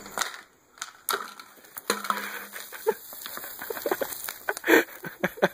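Diet Coke foaming up and gushing out of a plastic 2-liter bottle after Mentos drop in, a fast, irregular run of crackles and splashes as the fizzing soda sprays and spatters. Brief vocal noises from the drinker come through about four and five seconds in.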